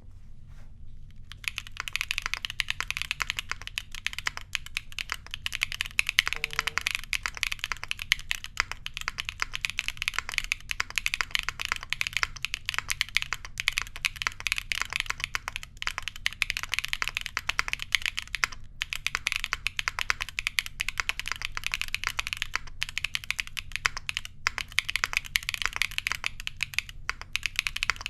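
Steady fast typing on a Tess65 mechanical keyboard with factory-lubed Gateron Lemon Seabreeze linear switches mounted on an aluminum plate. It is a dense run of crisp keystroke clicks that starts about a second and a half in, with a few brief pauses.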